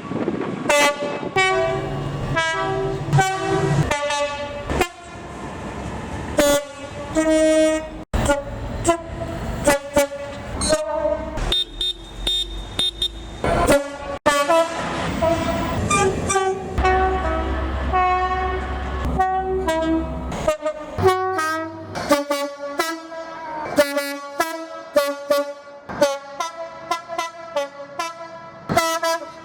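British passenger and freight train horns sounding long runs of short blasts that step between several pitches, played as tunes rather than single warnings. The toots come thick and fast in the second half, with a low train rumble under them about 17 to 20 seconds in, and the sound breaks off abruptly twice where separate recordings are joined.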